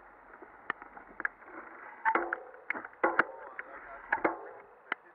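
Bicycle rattling as it rolls over a city street, heard through a camera riding with it: a string of sharp, irregular clicks and knocks, the loudest about two, three and four seconds in.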